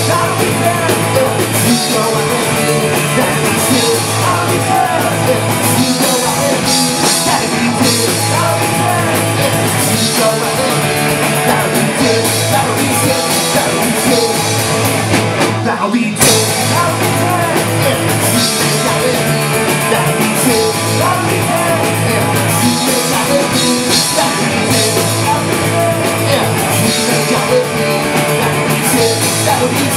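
Live punk rock band playing at full volume: electric bass, guitar and drum kit with a singer's vocals. The band stops for a split second about halfway through, then comes back in with a hit.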